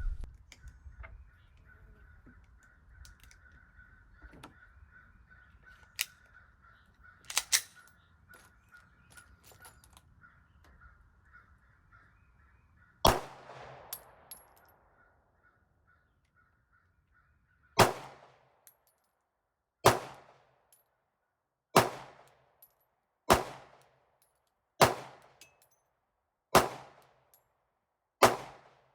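Handgun shots fired at a shooting range: a few scattered shots in the first half, then a run of seven shots at a steady pace, about one every one and a half to two seconds.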